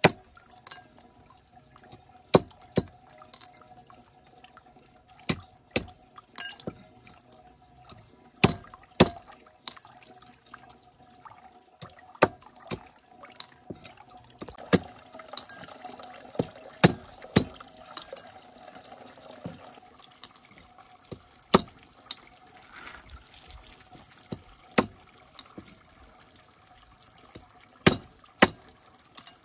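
A cleaver chopping stream snails on a wooden chopping block: sharp knocks of the blade on shell and wood, about one a second with irregular pauses. Under them, water trickles from a spout into a plastic basin.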